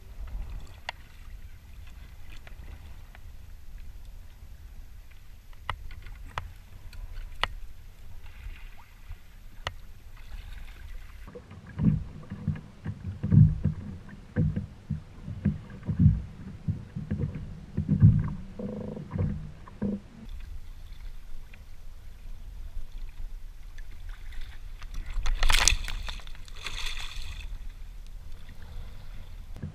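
Water and wind noise around a plastic fishing kayak at sea, with scattered clicks. For several seconds in the middle comes a run of dull knocks and thumps. Near the end there is a short, louder rush of noise.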